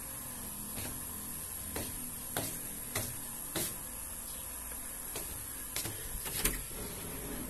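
Footsteps on wooden floorboards: a series of light knocks at walking pace, over a steady hiss.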